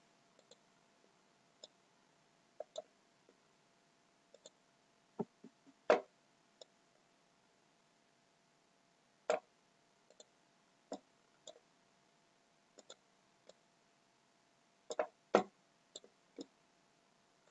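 Scattered, irregular clicks of a computer mouse, fairly faint, with the sharpest about six seconds in and a small cluster near the end.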